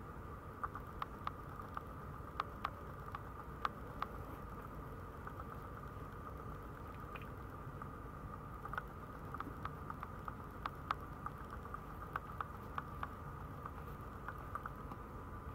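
Faint, irregular small clicks and taps from newborn Maltese puppies stirring on the hard floor of their box, over a steady faint hum.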